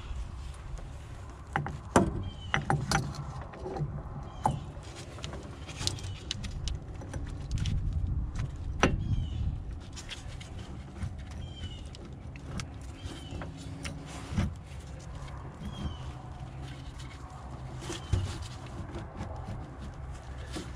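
Scattered clicks, taps and knocks of hand work on a truck steering box: a sector shaft seal being handled and pushed onto the end of the sector shaft. A low steady rumble runs underneath.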